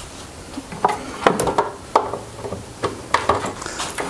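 Irregular knocks and clunks of wood and tools being handled, about eight sharp taps spread unevenly over a few seconds, with no power tool running.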